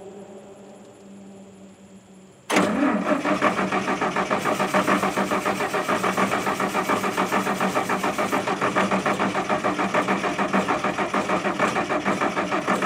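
The gasoline engine of an International R-185 fire truck cranking on its starter. It begins sharply about two and a half seconds in and goes on for about ten seconds, with a steady beat of about three compression pulses a second, and never catches. The owner suspects flooding, a dirty carburetor or the ignition.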